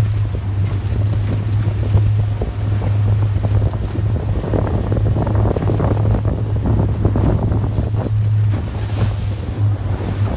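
Wind buffeting the microphone in uneven gusts over the steady low drone of a chase boat's motor, with the rush of water.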